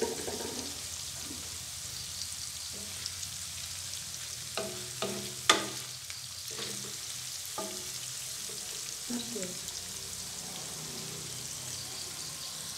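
Paneer cubes frying in hot coconut oil in a nonstick pan, giving a steady sizzle. In the middle there are a few sharp knocks of a wooden spatula as the cubes are stirred, the loudest about five and a half seconds in.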